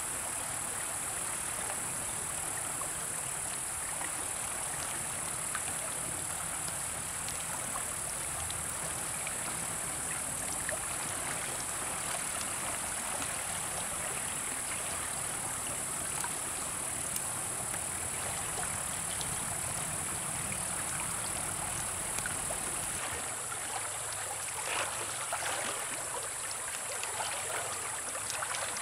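River water rushing and gurgling over rocks in a steady, continuous wash, with a steady high hiss above it. Near the end the low rumble drops away.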